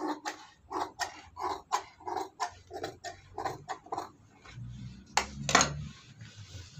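Large tailor's scissors snipping steadily through a pattern sheet, about three cuts a second, then two sharp knocks as the scissors are set down on the sewing machine's metal bed.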